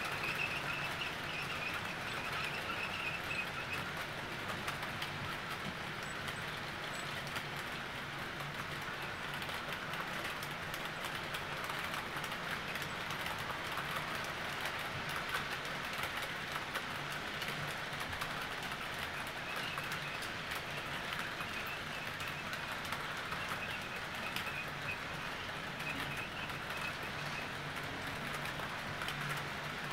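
Model freight train rolling around a curved track, a steady rumble of small wheels with fine rapid clicking over the rail joints and a low motor hum.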